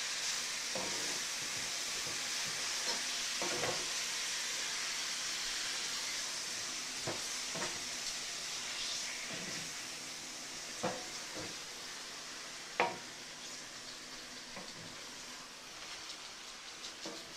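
Bell peppers, onions and diced tomatoes sizzling in a hot cast-iron skillet, stirred with a wooden spatula that now and then scrapes and knocks against the pan. The sizzle slowly dies down.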